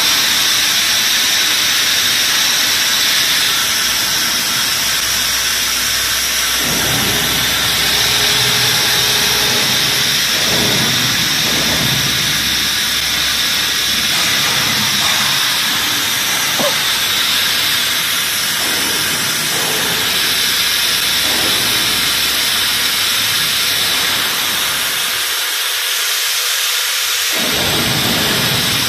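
Vacuum frying machine running: a loud, steady hiss.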